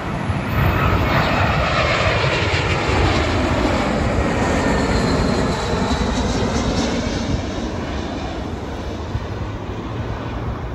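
Twin-engine jet airliner on final approach passing low overhead: a loud rush of jet engine noise with a high whine that falls in pitch as it passes, easing off over the last few seconds as it moves away.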